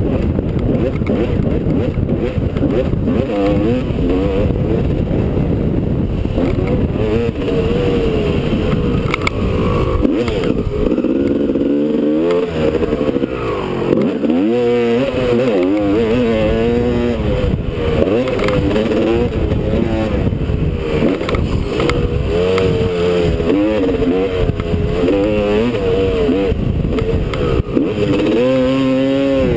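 Two-stroke Honda dirt bike engine, heard from a helmet camera, revving up and down through the gears. About twelve seconds in the throttle is shut off and the revs fall away for a couple of seconds, then climb again.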